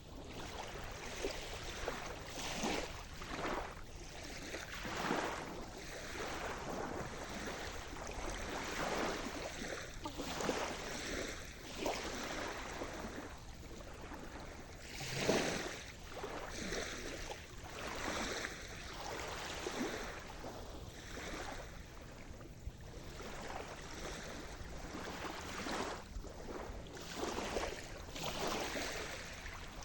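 Sea surf: small waves washing and breaking on the shore in irregular swells every second or two, one louder break about halfway through.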